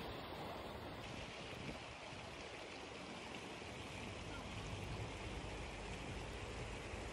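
Steady rushing of moving water.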